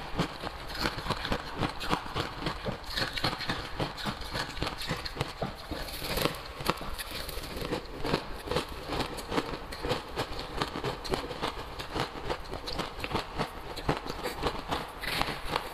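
Crushed ice being chewed and crunched close to the microphone, a dense run of rapid crackling crunches, with a spoon scraping and scooping ice in a plastic jug.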